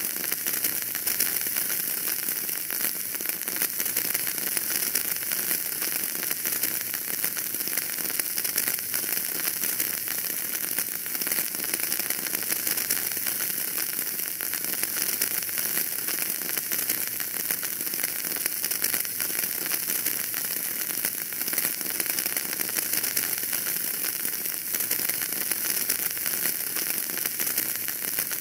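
Wood fire burning in a fireplace: a steady crackle and hiss with many small, rapid pops.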